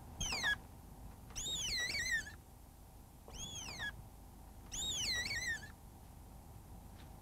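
A young deer fawn bleating: four high, wavering cries that each rise and then fall, the longer ones lasting about a second, with short pauses between them.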